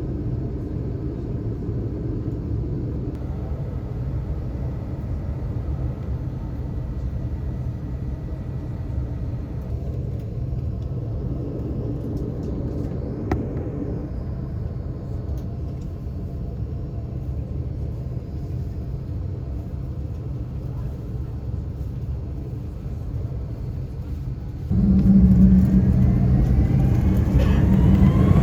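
Steady low rumble of a jet airliner heard from inside the cabin. About 25 seconds in it gets suddenly louder, and a rising whine climbs as the engines spool up for takeoff.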